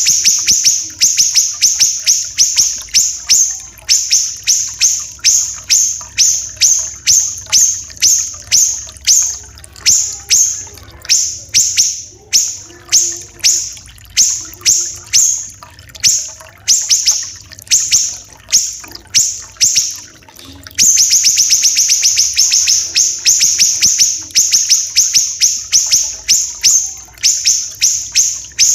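Siri-siri kecil songbird calling in long runs of short, sharp, high notes, each dropping in pitch. They come very fast at first, slow to about two a second, then speed up again near the end. Faint trickling water sounds underneath.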